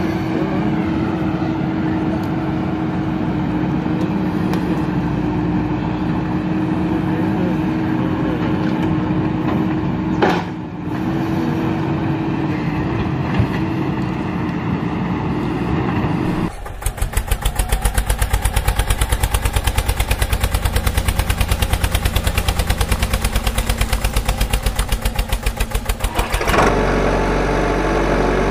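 Dubbed heavy-vehicle engine sound effects. A steady running engine note gives way, just past halfway, to a fast, even pulsing chug for about ten seconds, then changes to another steady engine sound near the end.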